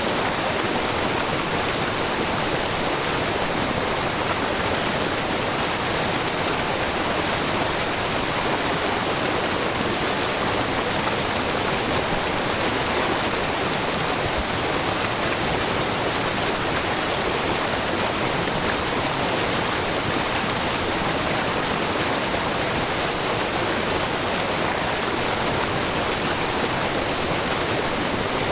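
Water falling steadily in many thin streams over a low, wide rock face into a pool and babbling brook, a constant, even rush with no change.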